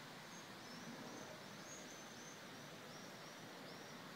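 A small bird giving faint, high, repeated chirps, about two a second, over a steady outdoor hiss.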